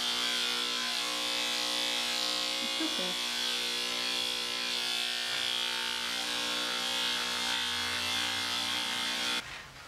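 Electric dog-grooming clippers with a 3 3/4 blade running with a steady hum and buzz as they cut through matted fur. The sound cuts off suddenly near the end.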